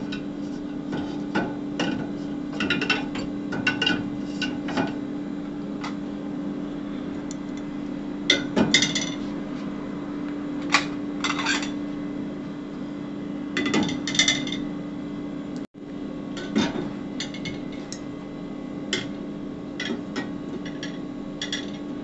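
Ceramic dinner plates and a glass pot lid being set into a dishwasher's plastic-coated wire racks: scattered clinks and knocks of dishes against the rack and each other, over a steady low hum.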